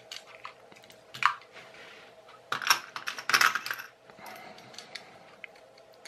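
Small plastic and metal parts of a car cigarette-lighter charger plug being handled as it is taken apart by hand: scattered light clicks and taps. A sharp click about a second in, then a louder spell of clattering and scraping from about two and a half to four seconds.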